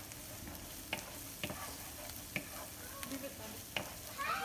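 Minced garlic, shallots and ginger sizzling gently in oil in a frying pan while a wooden spoon stirs them, with a few short knocks of the spoon against the pan.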